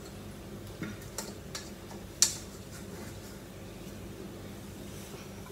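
A few light clicks and taps of a spatula against a steel mixing bowl as sauce is scraped out into a glass baking dish, the sharpest tap a little over two seconds in, over a low steady hum.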